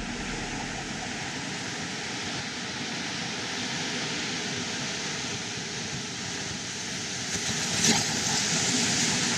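Heavy sea surf breaking on rocks, a steady rushing noise. One wave crashes louder about eight seconds in.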